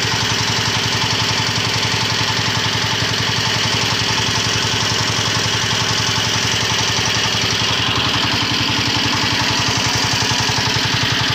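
Single-cylinder horizontal diesel engine running steadily with an even, rapid beat. It drives a winch through a belt, a worm-gear reducer and a chain while the drum winds in the steel wire rope.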